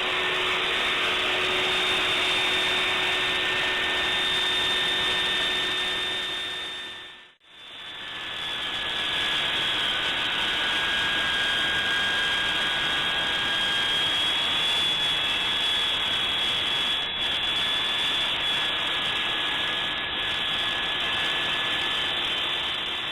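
Makita 2708 portable table saw running at speed with a steady high whine. The sound drops out abruptly about seven seconds in and then resumes.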